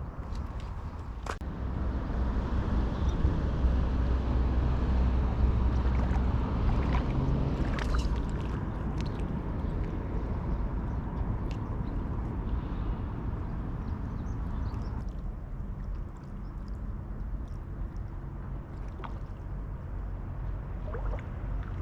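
A steady low rumble with faint water-like noise and a few scattered clicks. The rumble swells for several seconds early on and then eases.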